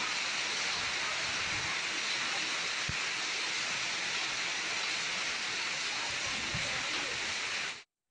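Heavy rain pouring down in a steady, even hiss, which cuts off abruptly near the end.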